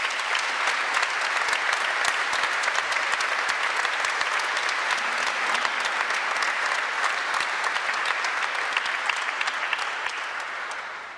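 Congregation applauding steadily for about eleven seconds, dying away at the end.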